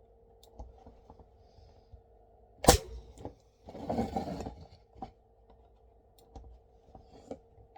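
A nail gun fires a single pin into the wood of a beehive frame joint with one sharp crack about a third of the way in, followed by a second of handling noise as the frame is shifted, and a few small clicks.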